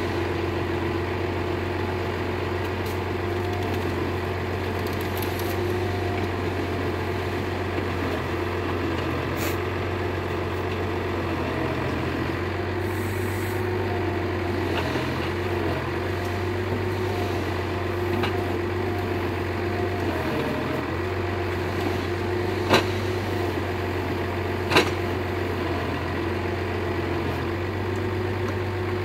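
John Deere 6600 forestry tractor's diesel engine running steadily while its hydraulic loader crane works, with a steady whine over the engine hum. Two sharp knocks about two seconds apart near the end.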